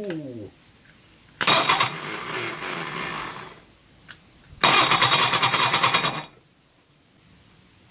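Reliant four-cylinder engine cranked over by its starter motor in two bursts of about two seconds and a second and a half, the second louder, each stopping abruptly when the starter is released. A short falling whine at the start is the engine winding down from the previous attempt.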